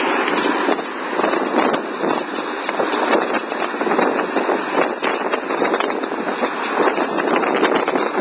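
Waterfall: water rushing and splashing steadily.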